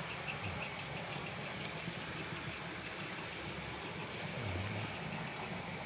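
Night insects, crickets, chirping in a steady pulsing chorus, high-pitched at about five or six pulses a second.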